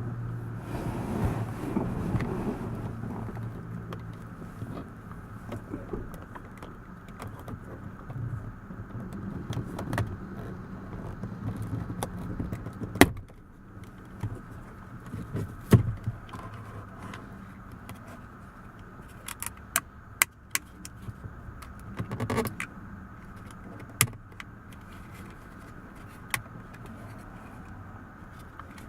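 Hands working on a car door's power window switch: scattered sharp clicks and small rattles of plastic parts being handled and pried, over a steady low hum.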